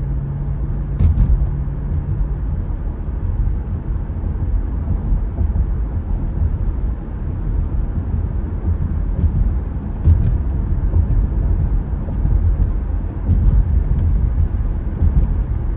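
Steady road noise inside a moving car's cabin: a low rumble of tyres and engine at highway speed, with a faint low hum over the first couple of seconds and a few light ticks.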